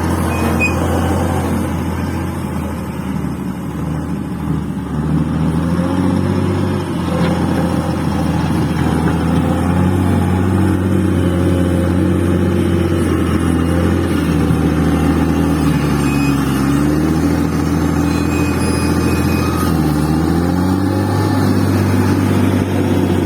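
Bulldozer's diesel engine working hard as it pushes and levels fill soil, its pitch dipping and rising several times as the load changes.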